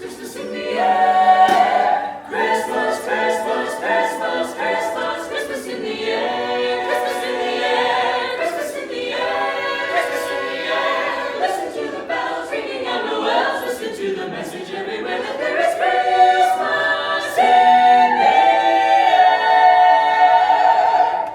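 A cappella vocal ensemble singing holiday harmony in several parts without recognisable words, over a steady beat of short, crisp high hisses. It swells into a loud held chord near the end.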